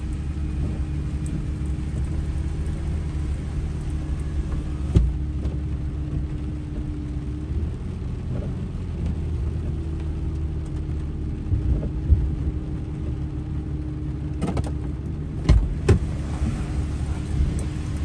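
Pickup truck engine idling steadily, heard from inside the cab, with a few short sharp knocks, most of them near the end.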